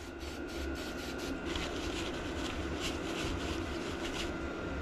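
Short hissing strokes of an aerosol cleaner sprayed onto a diesel heater's aluminium housing, followed by a paper towel wiped over the metal. A steady hum runs underneath.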